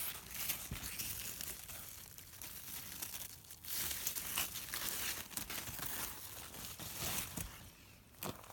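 Large squash and pumpkin leaves rustling and crinkling as a hand pushes through them and moves them aside, louder in uneven spells.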